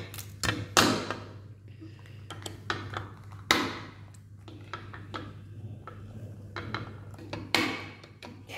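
Clicks and taps of a small precision screwdriver and a hard drive's metal casing being handled on a hard tabletop while the screws of the drive's circuit board are undone, with louder knocks about a second, three and a half and seven and a half seconds in.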